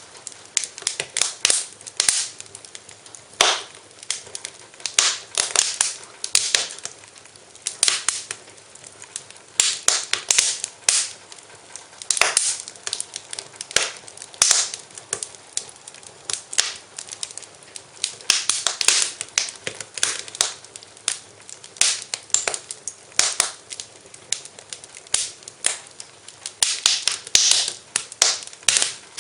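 Wood fire crackling and popping in a fireplace: a steady run of irregular sharp snaps over a faint hiss.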